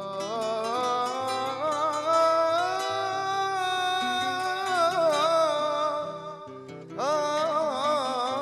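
A male voice singing long, wavering held notes without clear words over two acoustic guitars being plucked and strummed. The voice dips away near six seconds and a new phrase starts with a rising slide about seven seconds in.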